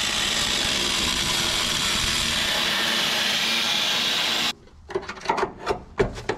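Angle grinder cutting through the steel body sheet metal of a car's rear end: a steady, high-pitched grinding that stops abruptly about four and a half seconds in. A few scattered knocks and clatters follow.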